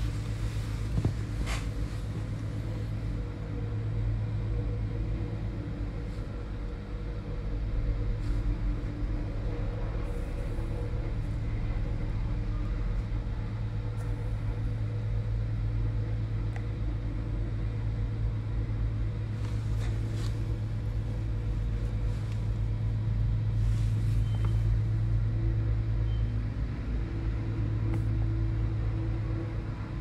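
Steady low machine hum with a few faint clicks.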